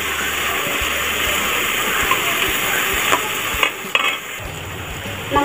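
Diced carrots and green beans sizzling in hot oil in a steel pan while a perforated steel skimmer stirs them, scraping and clicking against the pan. The sizzle eases a little about four seconds in.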